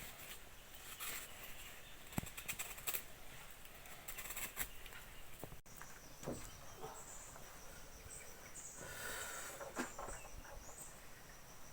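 Faint scattered clicks and light knocks over an outdoor background, joined about halfway through by a steady high buzz.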